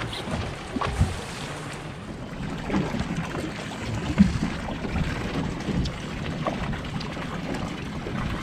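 Choppy water slapping against a boat hull, with wind buffeting the microphone and a few sharp knocks, the loudest about four seconds in.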